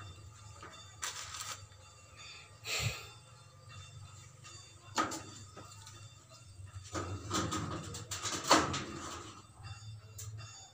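Scattered knocks, clatters and scrapes of hand-work on a metal window frame, with a busier run of them in the second half and the loudest clack about eight and a half seconds in.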